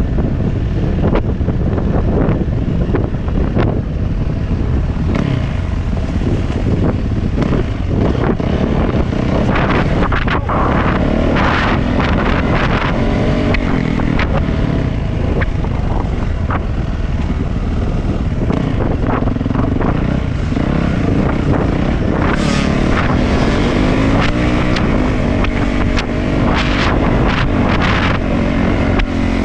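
Dirt bike engine running at changing throttle, its pitch rising and falling, under heavy wind noise on the microphone, with scattered knocks and rattles.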